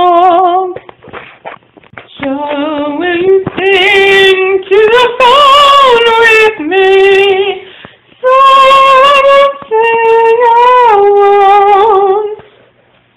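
A woman singing solo and unaccompanied in phrases of long held notes with some vibrato. She stops near the end.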